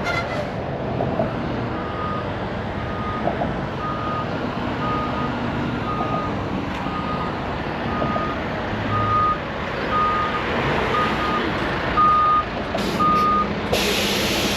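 Reversing alarm on a work vehicle beeping at one steady pitch, about once a second, over steady traffic noise. A short burst of loud hiss comes near the end.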